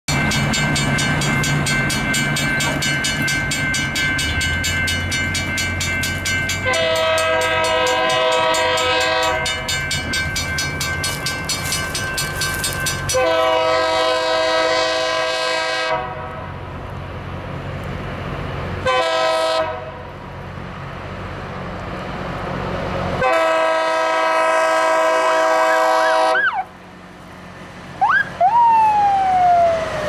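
Loram rail grinder's horn sounding the grade-crossing signal: two long blasts, a short one and a final long one, over a diesel engine's rumble and the steady ringing of crossing bells. Near the end a whistle rises and then falls, like a wolf whistle.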